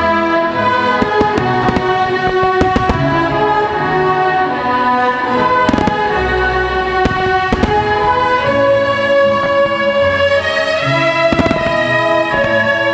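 Orchestral music with strings and brass, punctuated by scattered sharp bangs of aerial firework shells bursting, several in quick clusters.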